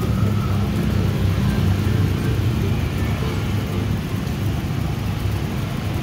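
Steady low rumble of road traffic, with an engine running close by.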